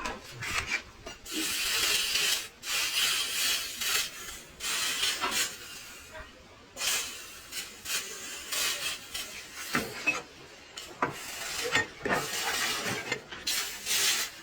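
Hand rasping on the axe work: a file or rasp scraped back and forth in uneven strokes about a second each, with a few short clicks between them.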